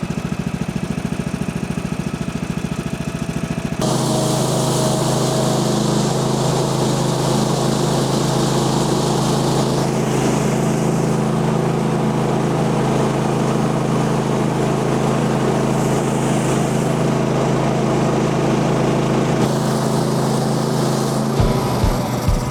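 Gas engine of a Woodland Mills portable bandsaw sawmill, at first idling with an even low pulsing. About four seconds in it jumps to a louder, steady full-throttle run to drive the band blade. Near the end it drops back to slow, separate thumps.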